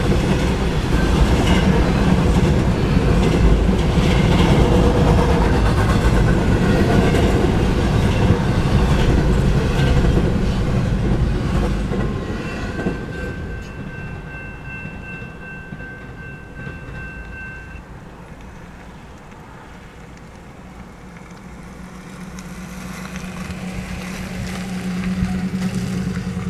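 Double-stack intermodal freight cars rumbling and clattering over the rails, loud for about the first twelve seconds, then fading away as the end of the train passes. A thin steady high tone sounds for about five seconds in the quiet that follows, and a road vehicle's engine rises near the end.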